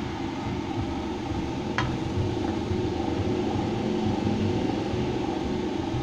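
Oil spinner for fried food, driven by a washing-machine motor, running steadily with a constant mechanical hum. A brief sharp click about two seconds in.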